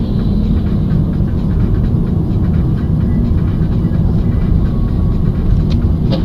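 Steady low rumble of a vehicle driving: engine and road noise.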